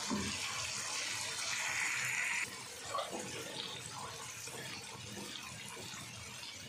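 Hot masala sizzling in a karahi as whisked yogurt is poured in and stirred with a spatula, with a few light spatula knocks. The hiss drops about two and a half seconds in.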